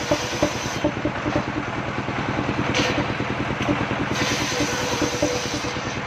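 Engine of a mobile circular-saw sawmill running steadily with a fast, even pulse, while the saw blade rips through a board with a loud hissing cut.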